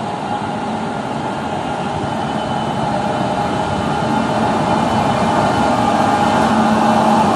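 WAP-7 electric locomotive pulling a passenger train out of the station, passing close by: a steady hum from the locomotive mixed with wheel and rail noise, growing gradually louder.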